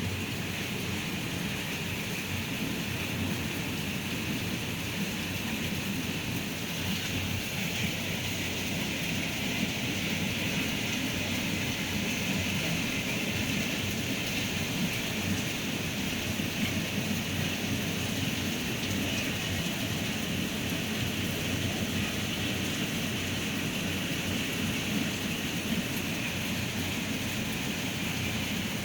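Heavy rain with strong wind, a steady, even rush that holds unbroken throughout.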